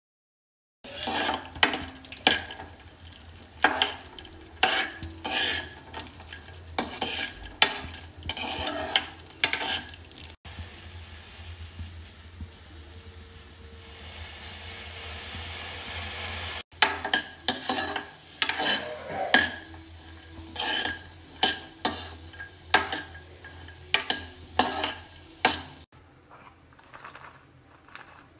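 Kitchen utensil sounds: a metal spoon clinking and scraping irregularly against steel vessels. In the middle comes a stretch of steady hissing, growing louder, from a steel pan of milk heating on the stove.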